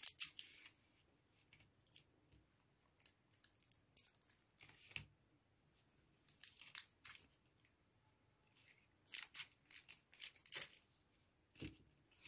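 Scissors snipping through a clear adhesive sheet to cut apart the metal pendant frames stuck on it. The snips come in scattered short clusters with quiet pauses between, with some light crinkling of the sheet.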